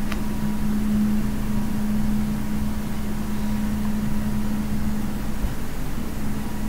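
Steady low machine hum with hiss and a faint higher whine, like a fan or appliance running in the room, with one light click right at the start.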